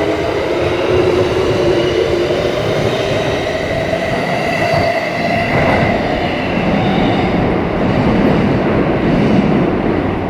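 Subway train pulling out of the station, its electric traction motors whining in several tones that climb steadily in pitch as it gathers speed, over the rumble of the wheels on the rails. After about six seconds the whine fades and the rolling rumble carries on.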